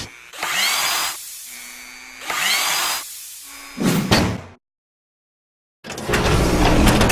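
A handheld power tool, most like a drill, run in two short bursts, its motor whining up in pitch each time. After a brief dead gap it comes back as a rougher, noisier stretch of tool sound.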